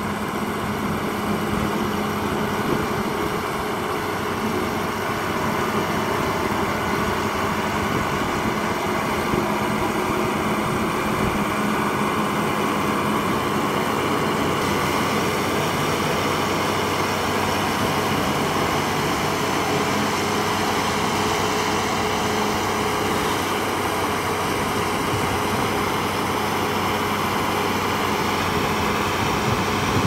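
Diesel engine of a single-drum road roller (soil compactor) running at a steady, even pitch as the machine rolls slowly over loose soil.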